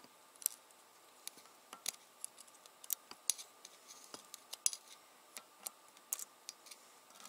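Faint, irregular small metallic clicks and scrapes of a steel pick working valve keepers into the retainer of a compressed valve spring on a VW 12-valve VR6 cylinder head.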